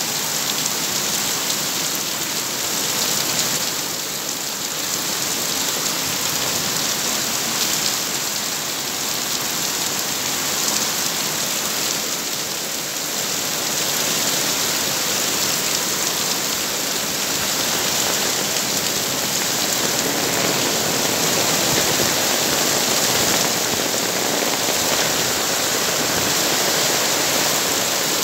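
Heavy rain falling steadily on concrete, cars and leaves, with runoff pouring off a roof edge and splashing onto a car roof. An unbroken hiss with no breaks or sudden sounds.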